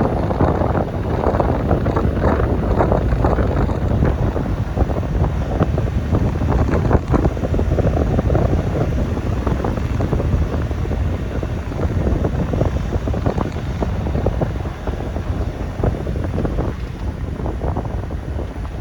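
Wind buffeting the microphone: a loud, steady low rumble with irregular gusty flutter.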